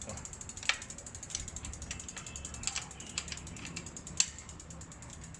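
Rapid, even ratcheting ticks with a few louder clicks among them, from a bicycle wheel being refitted and its axle nuts tightened.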